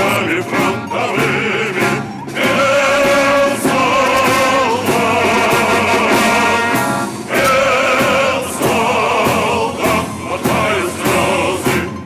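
Live music from a naval band with drums and brass, with held, wavering singing voices over it.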